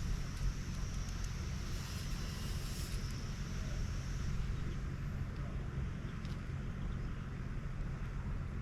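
A steady low rumble with a faint hiss above it, like distant road traffic; a higher band of hiss fades out about halfway through.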